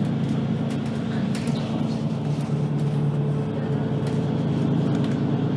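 VDL Citea LLE-120 city bus's engine running at a steady pitch, with an even, unchanging level.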